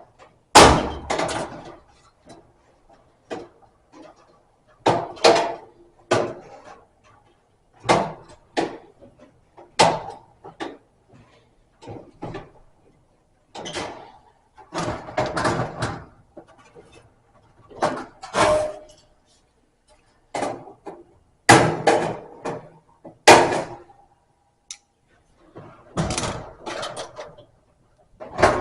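Pliers working a bent sheet-metal tab on a dryer cabinet: irregular sharp metal clanks and clicks, about two dozen, some with a short ring.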